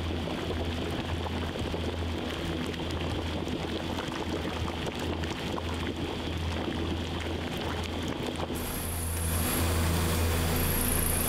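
Large stockpots of broth boiling hard over high-output gas burners: a steady low rumble from the flames with bubbling over it. It gets a little louder about nine seconds in.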